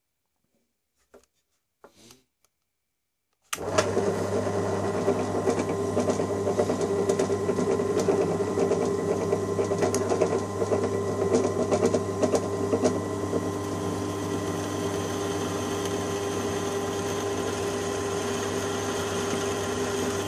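Ryobi benchtop drill press switched on about three and a half seconds in and then running steadily at about 600 RPM, its bit cutting a small pilot hole into a ball bearing.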